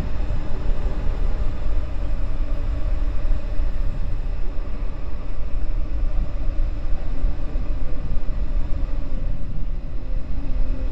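Wind buffeting the camera microphone: a loud, steady low rumble with a fainter hiss above it.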